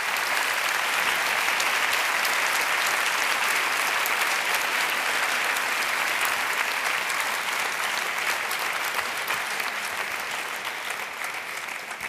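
Audience applauding at the end of a lecture: dense, steady clapping from a large crowd that thins out and fades over the last few seconds.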